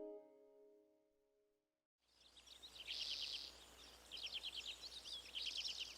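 Cartoon title music dies away, and after a second of silence a nature ambience fades in: quick runs of high chirping calls over a faint low hum.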